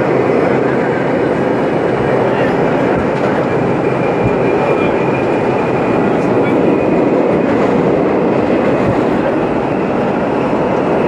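R32 subway car running at speed through a tunnel: a steady loud roar of wheels on rail with scattered clicks from rail joints. From about four seconds in, a thin high howl from the car's traction motors rides above it.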